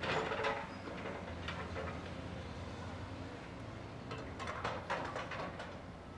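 Caterpillar 320C hydraulic excavator working, its diesel engine running steadily. A loud rush of dirt spills from the bucket onto the pile at the start, with more bursts of scraping and clatter about a second and a half in and again between four and a half and five and a half seconds in.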